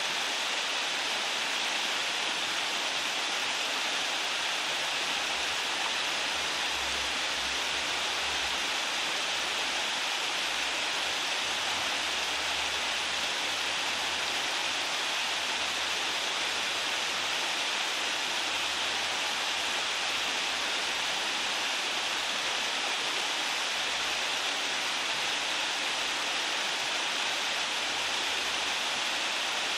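Waterfall: falling water making a steady, even rushing sound that does not change.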